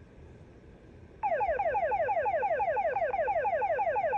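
Fire dispatch alert tone coming through a handheld scanner's speaker: after about a second of quiet hiss, a rapidly repeating falling sweep, about seven a second, runs for three seconds and cuts off abruptly.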